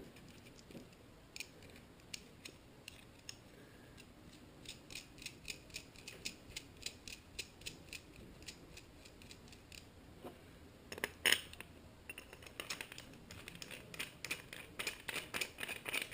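Light metallic clicking and ticking as a nut is threaded onto the rod of a bottom-bracket bearing puller and its parts are fitted together, a few clicks a second, with a sharper clack about eleven seconds in.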